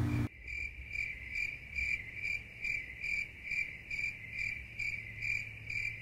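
A cricket-like insect chirping: a high, steady trill that pulses about twice a second, starting suddenly just after the start.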